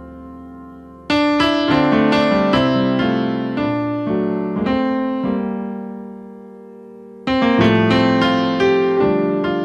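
Slow piano music. A chord is struck about a second in and rings out with a few melody notes over it, fades away, and then a new chord comes in near the end.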